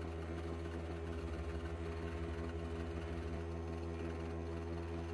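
Jeweller's polishing motor running at steady speed, turning a brush wheel: a constant hum with evenly spaced overtones.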